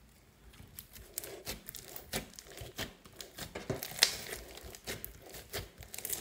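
Hands kneading and squeezing foam-bead slime made with soft clay: a run of irregular sharp crackles and pops, the loudest about four seconds in.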